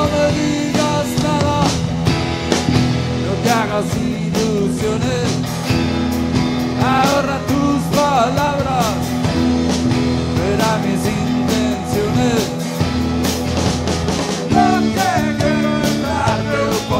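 Live rock band playing: electric guitar, bass guitar and drum kit with cymbals, over a steady low bass line. A melody line slides and bends in pitch above it.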